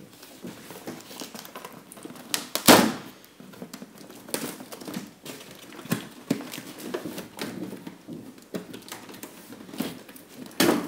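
Cardboard packaging rustling, scraping and creaking as a cardboard insert held in with hot glue is worked out of its box. There is a loud sharp crack about a third of the way in and another near the end.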